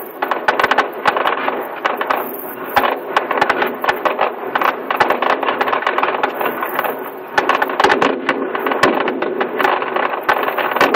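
Fireworks display: dense, irregular crackling and popping from bursting shells, continuous and loud.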